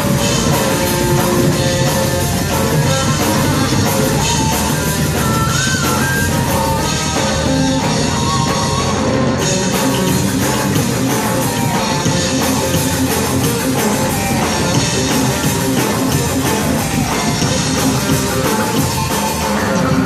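A rock band playing live with drum kit and guitars, loud and without a break.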